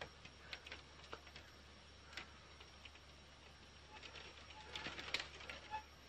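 Quiet handling noise: faint scattered clicks and taps of wood and bamboo being moved about, with a denser patch of clicks and light rustling about five seconds in.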